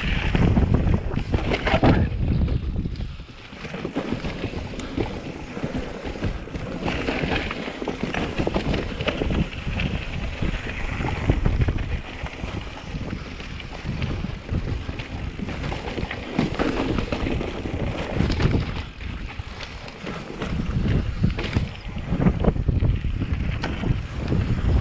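Wind buffeting the microphone in uneven gusts, with deep rumbling and brief lulls about three seconds in and again near twenty seconds.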